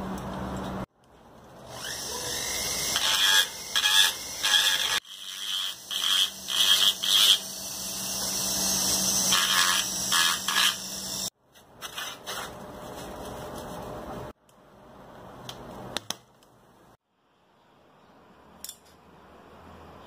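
Metal hand-tool work on a bicycle seat-post clamp: scraping and clicking of tools on the clamp and bracket, in several short segments that cut off suddenly.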